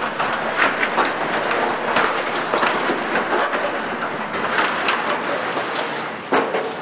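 CAT 340 Next Gen long-front demolition excavator working rubble and scrap: a dense, continuous clatter of crunching debris and metal with many knocks and clanks, and one sharper, louder knock near the end.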